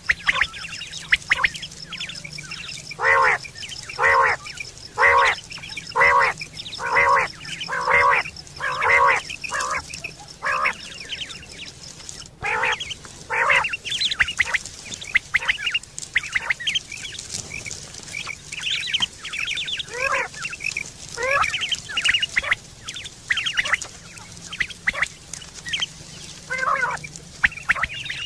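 Quail calling: a regular series of about nine short, nasal-sounding calls, roughly one a second, then looser, overlapping calls for the rest of the stretch. A faint steady high whine sits under the first half.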